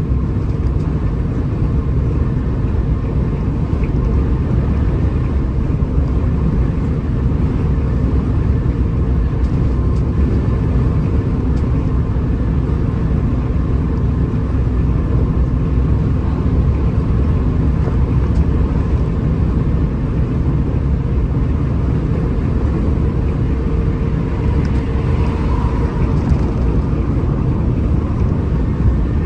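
A Hino RM 280 bus's diesel engine runs at a steady cruising speed on a highway. Its drone holds an even pitch under a constant low road rumble.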